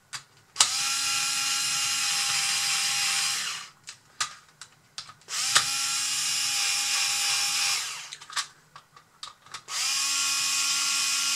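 Small cordless electric screwdriver driving screws into the road-wheel mounts of a plastic model tracked chassis. It runs with a steady whine in three bursts of about two to three seconds each, the last starting near the end. Small clicks and knocks of handling come between the bursts.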